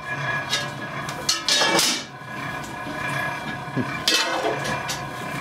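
Irregular knocks and scrapes of hard objects being handled, several spread across a few seconds, the loudest cluster about one and a half seconds in.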